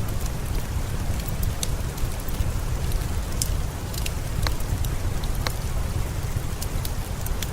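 Steady rain over a low rumble, mixed with the scattered sharp pops and crackles of a wood fire in a fireplace.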